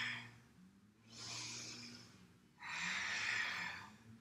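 A woman breathing deeply and audibly in time with a standing yoga movement. A softer breath comes about a second in and a louder one at about two and a half seconds, over a faint steady low hum.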